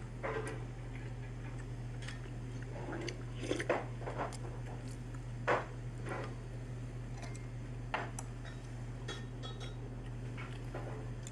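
Wooden spoon scooping from a ceramic bowl, knocking and scraping against it in scattered light clicks, the loudest about a third and halfway through, over a steady low hum.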